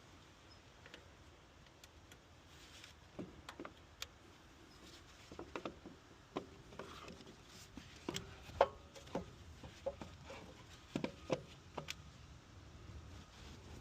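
Scattered light clicks and knocks of things being handled, coming irregularly and most often in the middle of the stretch.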